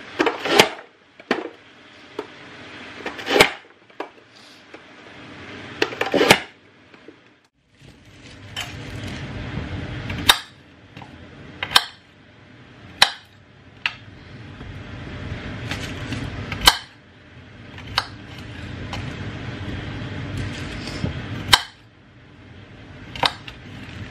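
A hand-pressed vegetable dicer comes down through vegetables with three heavy clacks a few seconds apart. Then a kitchen knife cuts potatoes on a plastic chopping board: sharp knocks about once a second, with a rising scrape of the blade through the potato between them.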